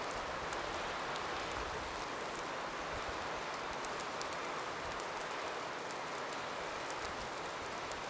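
Snowstorm ambience: a steady hiss of wind and falling wet snow in the trees, with faint scattered ticks.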